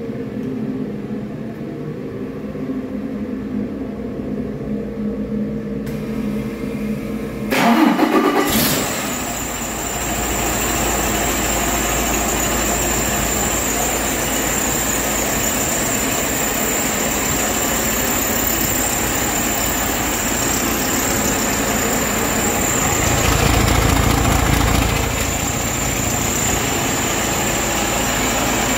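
A 2018 Detroit Diesel DD13 inline-six diesel truck engine starting about eight seconds in with a short loud flare, after a low steady hum. It then settles into a steady idle with a thin high whine over it, and its note swells briefly a few seconds before the end.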